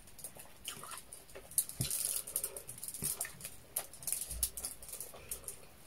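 Close-up eating sounds: fingers picking rice and meat off a shared spread and mouths chewing, heard as soft, irregular small clicks and crackles.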